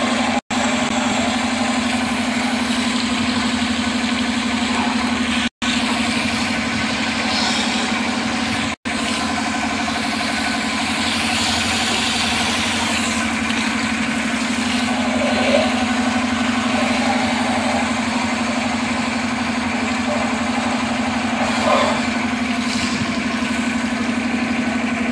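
Pressure washer running steadily, its pump motor humming under the hiss of the water jet spraying onto a dismantled engine block and head during cleaning. The sound cuts out for an instant three times in the first nine seconds.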